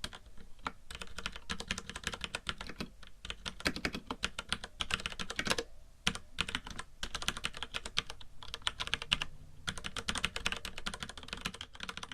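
Fast, continuous typing on a FILCO Majestouch mechanical keyboard with Cherry MX Brown (tactile) switches: rapid key clacks with brief pauses between runs, and a faint hiss underneath.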